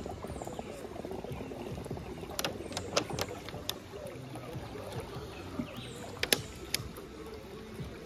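Quiet river water around a bamboo raft, with a few sharp clicks and knocks in two clusters, one before the middle and one near the end.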